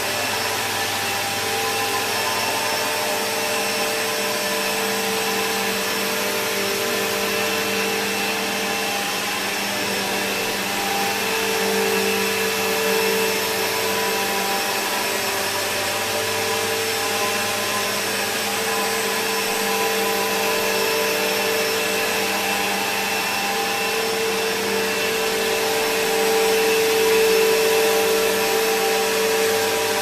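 2005 Bissell Bagless (6579-1) upright vacuum cleaner running at a steady pitch while it is pushed over carpet: a motor hum and whine over a rushing hiss.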